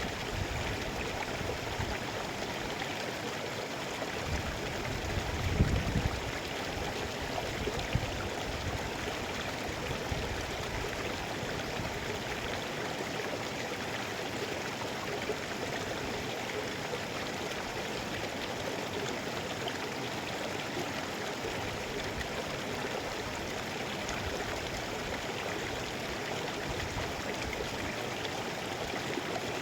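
Mountain river flowing, a steady rushing and gurgling of water, with a brief louder low rumble about five to six seconds in.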